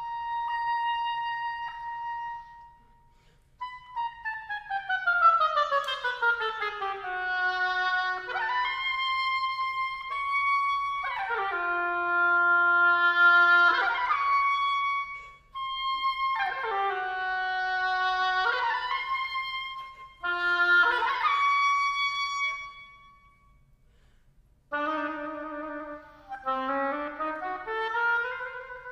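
Unaccompanied solo wind instrument playing: a held note, then phrases of quick downward runs that each settle on a low held note, with two brief pauses, and rising figures near the end.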